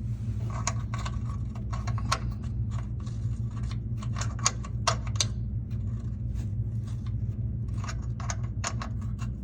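Repeated metal-on-metal strikes, in uneven clusters of sharp knocks, as a stuck bolt or shaft on the upper control arm is banged out. A steady low hum runs underneath.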